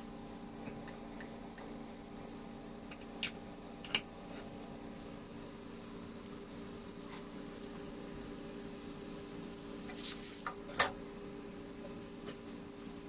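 A few light clicks and taps of a silicone brush and a slotted spatula against a nonstick pan, the sharpest two near the end, over a faint steady kitchen hum.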